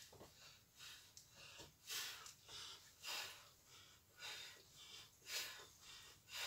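A woman's heavy breathing during an exercise routine: short, faint exhales about once a second, in time with her knee-to-elbow movements.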